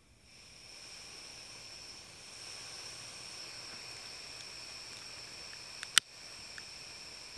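Gas hissing steadily from a single-burner canister camping stove after its valve is opened, with a thin high whistle in the hiss, growing slightly louder about two and a half seconds in. A single sharp click from a utility lighter about six seconds in.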